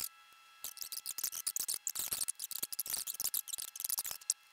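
Film soundtrack played at high speed: a fast, high-pitched chatter of clicks and squeaks with a few held tones over it, starting about half a second in and thinning out near the end.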